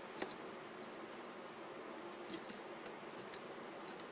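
Faint, light metallic clicks of lock-picking tools as a deeper pick is taken up and fitted into the lock's keyway. The clicks are scattered and irregular, with a quick pair about two and a half seconds in.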